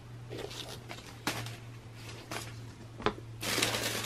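Light handling sounds of a sneaker and its cardboard box, a few soft taps and rustles, then tissue paper rustling and crinkling as a hand digs through it, starting about three and a half seconds in.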